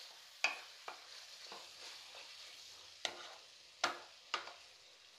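Goat liver stir-frying in a kadai with a faint sizzle, as a utensil scrapes and knocks against the pan: about six sharp clicks, the loudest just before four seconds in.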